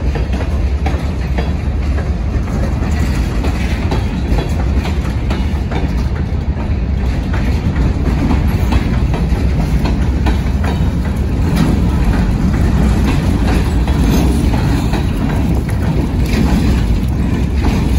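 Freight train of boxcars and tank cars rolling past close by: a steady low rumble, with the wheels clicking and clacking over the rails.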